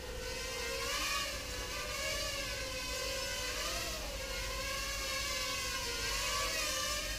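Small quadcopter's propellers whirring, a steady whine whose pitch wavers up and down as the motors speed up and slow down.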